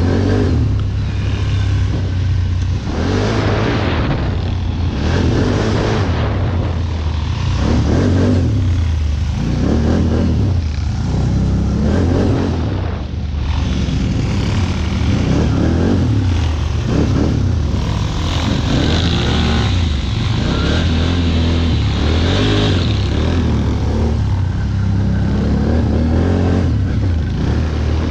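ATV engine running under load and revving again and again, its pitch rising and falling every second or two over a steady low drone.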